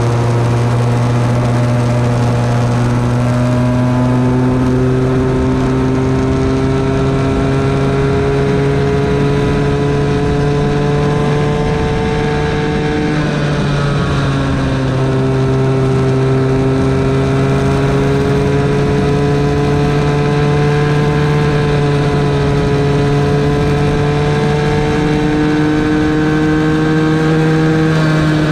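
Small single-cylinder engine of a bambino go-kart heard from on board the kart. Its pitch climbs slowly along a straight, drops sharply about halfway through as the kart slows for a corner, then climbs slowly again and drops once more near the end.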